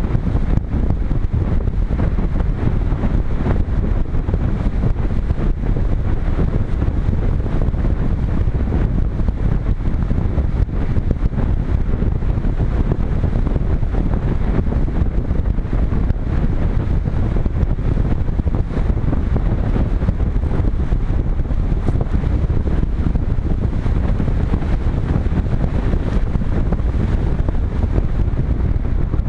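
Airflow rushing over a GoPro Hero 3 camera mounted on a Multiplex Cularis RC glider in flight: steady wind noise, heaviest in the low end, with no clear motor whine.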